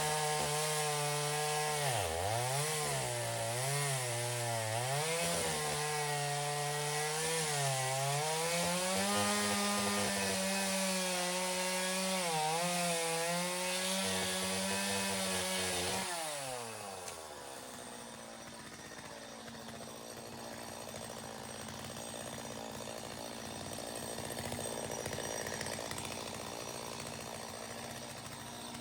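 Chainsaw cutting branches of a dead kōwhai tree. The engine pitch sags and recovers repeatedly as the chain bites into the wood. About sixteen seconds in, the revs fall away and it runs on quieter at low speed.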